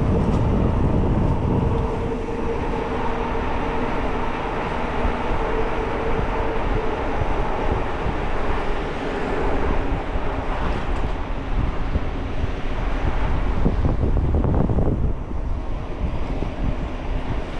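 Wind rushing over the microphone of a camera on a moving bike, over steady road and traffic noise. A steady hum runs under it and fades out about halfway.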